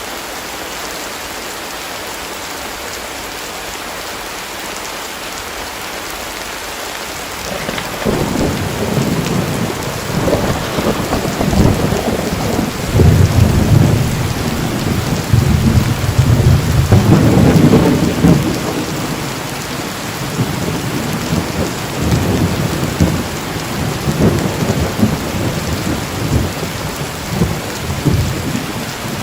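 Heavy rain falling steadily. About seven seconds in, thunder breaks in and rumbles on in rolling swells, loudest around the middle.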